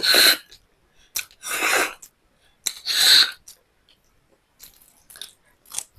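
A person eating close to the microphone: three loud breathy bursts of mouth noise about a second and a half apart, then softer chewing clicks near the end.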